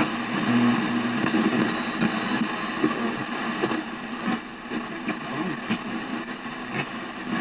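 Becker Europa car radio hissing with static through its speaker, faint wavering traces of a station showing through, as between stations on the dial.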